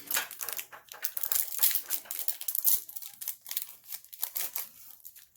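Foil Pokémon card booster pack being torn open by hand and crinkling, a dense run of irregular crackles that thins out near the end.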